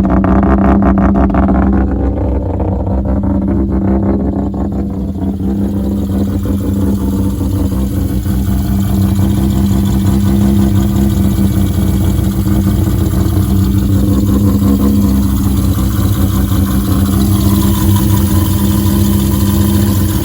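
Mazda RX-8's swapped 13B-REW rotary engine running at idle on its own after being cleared of flooding with starter fluid. It is a little uneven for the first few seconds, then settles into a steady idle.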